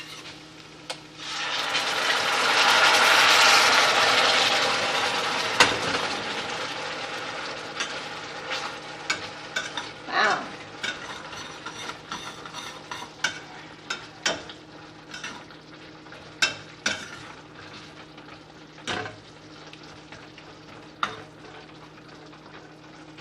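Diced chicken and sweet barbecue sauce sizzling in a hot pan. The sizzle swells about a second in and then slowly dies down, while a utensil stirs with scattered clicks and knocks against the pan.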